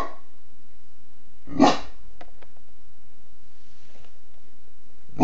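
Great Dane barking at fireworks: one bark about a second and a half in, and another at the very end.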